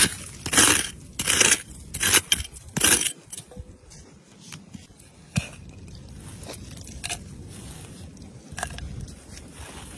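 Small metal three-prong hand cultivator scraping into loose, stony soil in four quick strokes, followed by quieter scratching and rustling as the soil is dug and scooped by hand.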